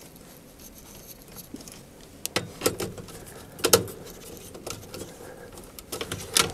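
Scattered light clicks and taps of a wire being pushed into a variable frequency drive's screw terminal and a small screwdriver tightening the terminal screw, with the sharpest clicks a couple of seconds in and just before the end.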